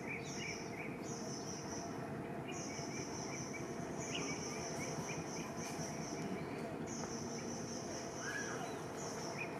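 Forest ambience: insects trilling high-pitched in repeated bursts of one to two seconds, with small bird chirps and a steady low background noise.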